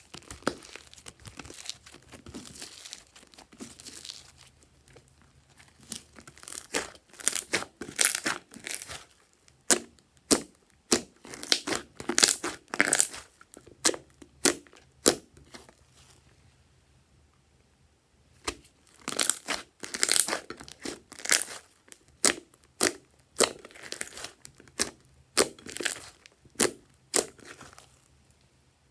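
Hands squishing, folding and stretching a thick slime, making runs of sharp squelching pops and crackles as air pockets in the slime burst, with a quieter lull a little past halfway.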